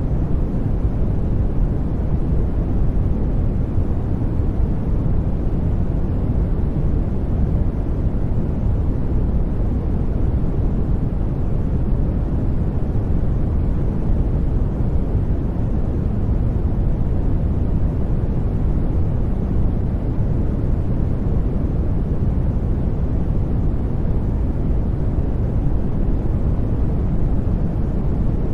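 Steady, unchanging white noise, weighted toward the low end so that it sounds deep rather than hissy.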